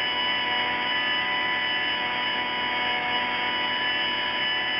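A grinder running steadily, grinding down a weld: a constant whine of several steady tones over a hiss.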